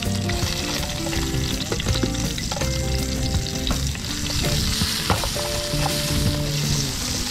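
Sliced red onion sizzling in hot oil in a small frying pan, with a metal spatula stirring and clicking against the pan.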